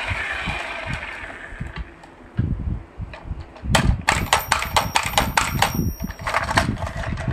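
Battery-powered Thomas the Tank Engine toy train: its motor and gears whirring fade out over the first two seconds as it comes to a stop. Then, with a hand on the toy, a rapid run of sharp plastic clicks and knocks lasting about three seconds.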